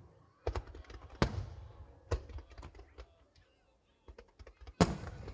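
Firework shells bursting: a sharp boom about half a second in, a louder one just after a second, another around two seconds, then a run of small crackles and the loudest boom near the end. Each bang trails off in a long echo.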